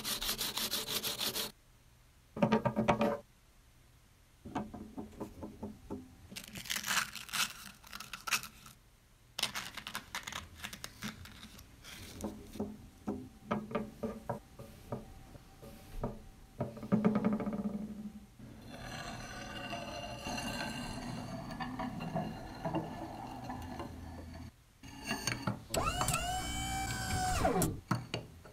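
Short bursts of a steel chisel rubbed on sandpaper, stop-motion sound effects, mixed with music. Near the end a pitched sound slides up and down.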